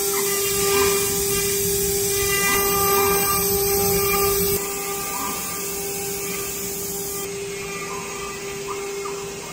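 FW-1325 CNC router's spindle running with a steady whine as its bit engraves letters into a wooden board. Short rising and falling whirs come from the gantry drives as the head moves. The sound drops a little about four and a half seconds in.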